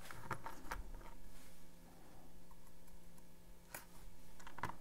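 Small metal lock-pick tools and spacers clicking against each other and the handle frame as they are handled. There are a few clicks in the first second, one just before four seconds, and a quick cluster near the end.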